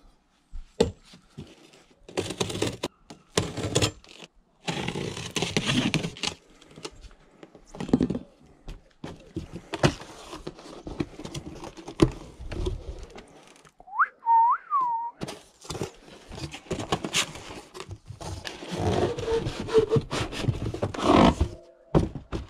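Cardboard boxes and packing tape being cut with a kitchen knife and pulled open: bursts of scraping, rustling and tearing cardboard with sharp knocks. A short whistle that rises and falls twice comes about fourteen seconds in.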